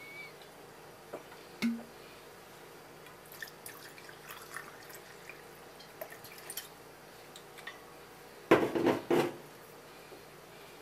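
Sake poured from a glass bottle into a small ceramic cup: scattered light trickling and dripping ticks, then a short louder cluster of knocks and clatter near the end.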